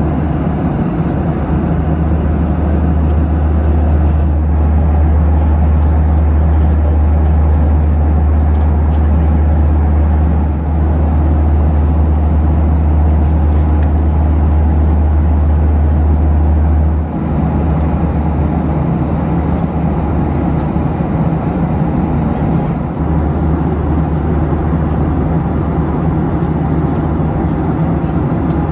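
Steady cabin noise inside a Boeing 737 in flight: a deep engine hum under an even rush of airflow, which eases slightly a little past halfway.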